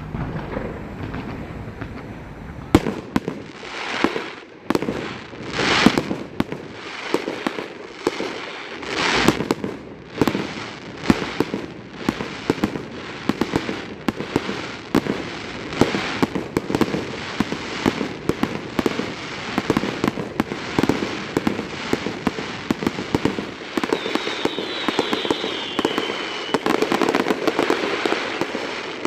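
Fireworks display: a dense run of sharp bangs and crackling begins about three seconds in, with swelling hisses between the reports and a whistle that falls in pitch near the end.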